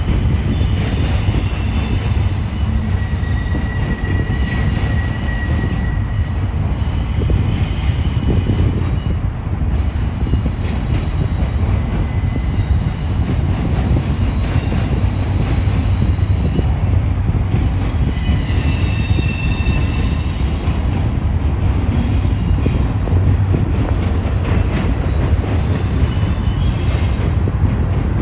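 Union Pacific double-stack intermodal train rolling past in a steady low rumble, with high-pitched wheel squeal that comes and goes, strongest near the start and again about two-thirds through.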